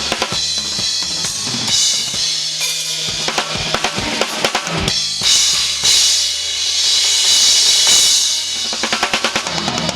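Drum kit played at a sound check: a busy pattern of bass drum and snare hits, with cymbals washing from about halfway until near the end, then a fast run of hits.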